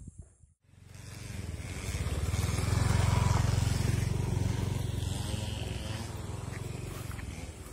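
A motor vehicle's engine passing close by, swelling to its loudest about three seconds in and then slowly fading away.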